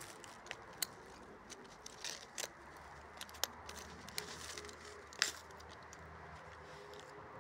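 Footsteps on a gritty asphalt path: scattered light clicks and crackles at an uneven pace over a faint background. A faint tone rises slowly in pitch near the end.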